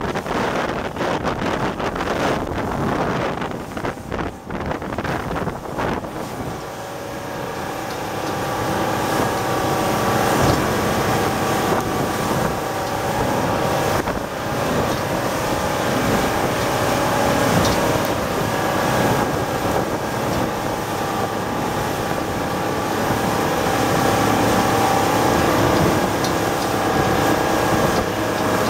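Yanmar DE24GZ motorboat under way at speed: wind buffeting the microphone and water rushing past the hull for the first several seconds, then the engine's steady drone comes up clearly and grows a little louder.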